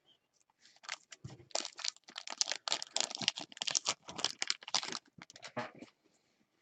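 Trading card pack wrappers crinkling and rustling in quick, dense crackles as the packs are handled, thinning out after about five seconds.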